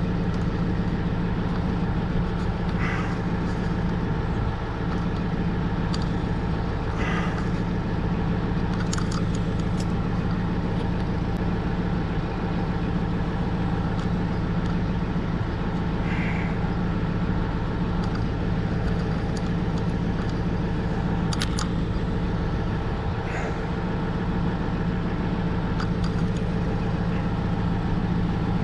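Steady hum of an idling engine, with a few faint short clicks scattered through it.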